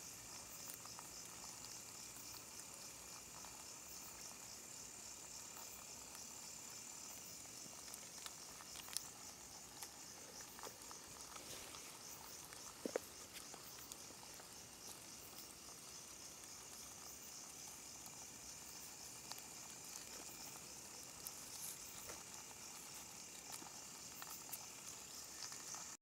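Faint chorus of night insects: a steady, high-pitched, fast trill with a weaker lower trilling beneath it. A few faint clicks sound midway.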